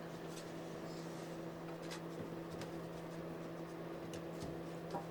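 A steady low hum on two pitches, with a few faint scattered clicks and taps.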